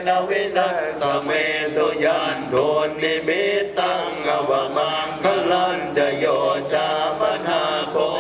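A group of voices chanting Buddhist texts together in a steady, sing-song recitation, at a Thai Buddhist ceremony.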